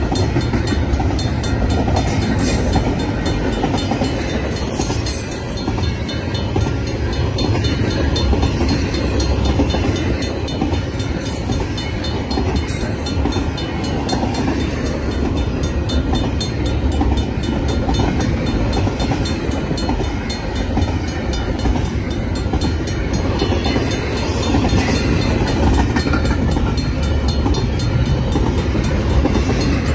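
BNSF double-stack intermodal freight train rolling past, a steady rumble of its container well cars' steel wheels running over the rails.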